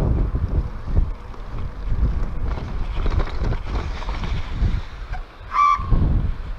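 Wind buffeting the microphone of a camera on a moving bicycle, a gusty low rumble that comes and goes. A brief high tone sounds about five and a half seconds in.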